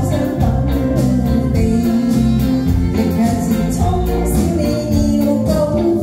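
A woman singing live with a pop band: drum kit, electric guitar and keyboards playing a steady beat under her voice.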